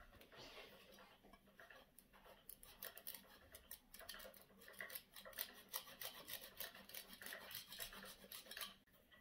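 Faint scraping of a wedge of hard cheese being grated on a flat hand grater: quick, evenly repeated strokes that begin about two seconds in and stop shortly before the end.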